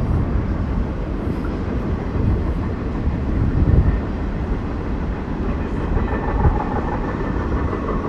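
A train running past, a steady low rumble with no break.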